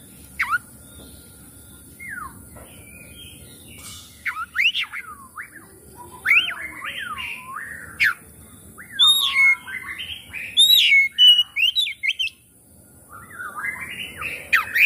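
Oriental magpie-robin (kacer) singing a varied song of quick rising and falling whistled notes, delivered in bursts, with a short pause near the end.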